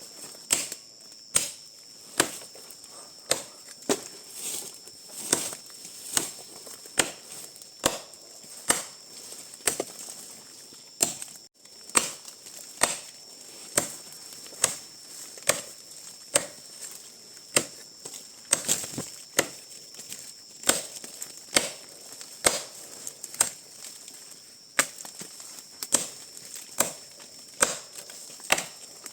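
A tool striking over and over in a steady chopping rhythm, a little faster than one blow a second, over a steady high-pitched hum.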